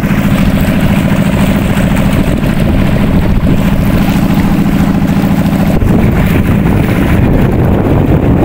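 Small motorboat's engine running steadily as the boat moves over the water. About six seconds in, the steady engine note gives way to a rougher rush with wind on the microphone.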